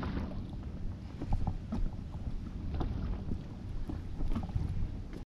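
Wind on the microphone and small waves lapping against an inflatable boat, a steady low rumble with a few faint ticks scattered through it. It cuts off suddenly near the end.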